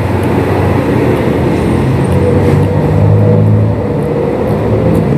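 Motor traffic passing close by, a vehicle engine's low hum rising and falling over a steady road noise, loudest about three seconds in.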